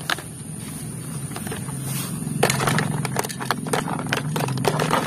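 Hard plastic toy guns clattering and knocking against each other as they are piled into a plastic basket, a run of sharp clicks starting about halfway through. Under it a low steady drone grows louder partway in.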